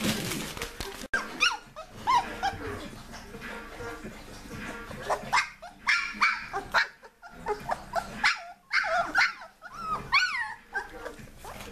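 Three-week-old puppies yipping and whining while they tussle: a string of short, high-pitched cries that rise and fall in pitch.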